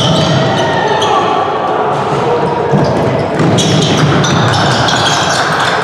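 Spectators and players at a youth football match shouting and calling over one another, with scattered thuds of the ball.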